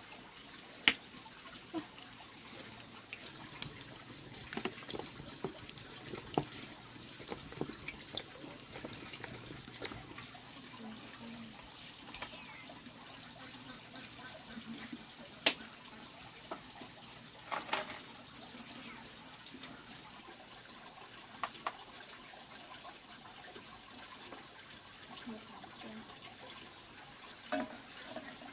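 Wood fire crackling under a wok in an open brick stove: a faint steady hiss with scattered sharp pops and clicks, the loudest about halfway through.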